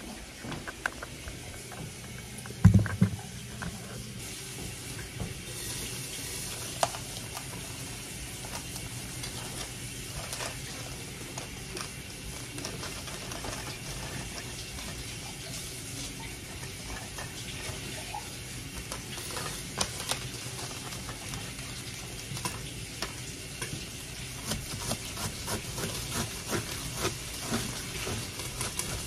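Breakfast being made in a kitchen: a steady hiss with many small clinks and knocks of utensils and cookware, the loudest a heavy thump about three seconds in.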